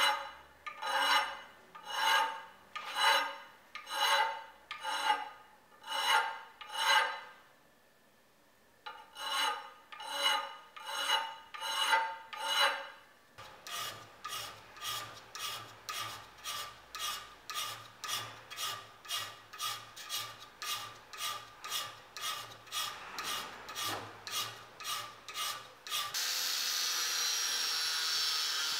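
Hand file stroking back and forth across a steel machete blade, about one ringing stroke a second, with a short pause. Then quicker, lighter strokes about two a second. Near the end an angle grinder starts up and grinds the steel with a steady whine.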